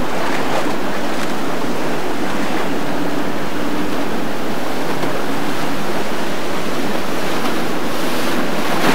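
Rough, turbulent water rushing and splashing, with the low hum of a small boat's outboard motor faintly under it.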